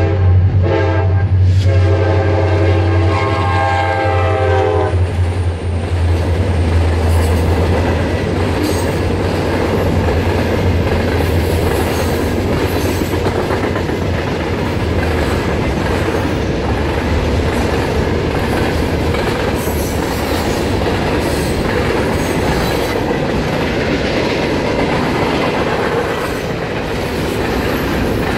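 A diesel locomotive's air horn sounds for the first five seconds, with a couple of short breaks, over the low drone of two EMD two-stroke diesel locomotives (an SD40-3 and a GP40-3), which fades by the middle. After that a long string of freight cars rolls by with a steady rumble and the clickety-clack of steel wheels over rail joints.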